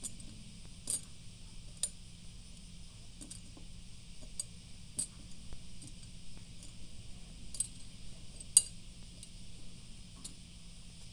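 Meiji Marble candy-coated chocolates clicking against a ceramic plate and against each other as they are picked up and slid off it: a dozen or so short, sharp clicks at irregular spacing, the loudest about three quarters of the way through.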